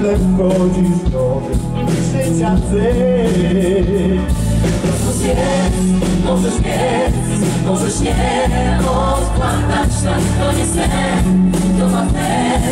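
Live vocal ensemble of mixed male and female voices singing together in a gospel-pop style over a band, amplified through stage speakers.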